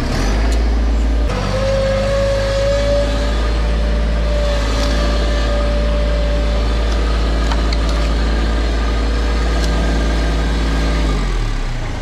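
Bobcat MT100 mini track loader's engine running at high throttle, with a steady whine from about a second in, as the machine backs up with a full bucket. The engine eases down near the end.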